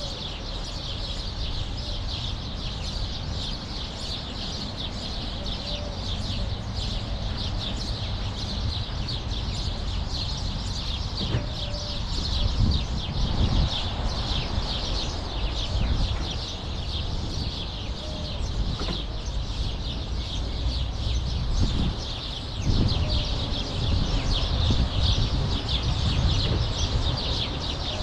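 A flock of sparrows chirping continuously in the trees: many overlapping high chirps with no break. A low rumble runs underneath and swells about twelve seconds in and again near the end.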